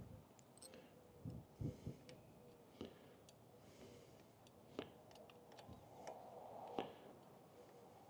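Near silence broken by faint, scattered clicks and a few soft knocks of small metal parts, as the front brake caliper's mounting bolts are threaded in by hand and an Allen key is handled.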